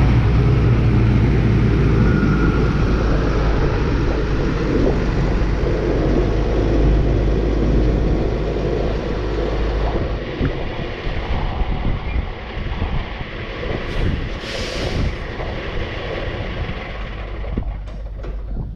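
A vehicle engine running with a steady low rumble. About ten seconds in, the steady rumble gives way to a rougher, uneven sound, with a short hiss about fifteen seconds in and a few clicks near the end.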